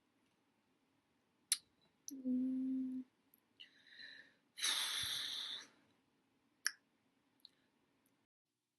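A woman's short burp about two seconds in, holding one steady pitch for about a second, followed by two breathy exhales and a few sharp clicks.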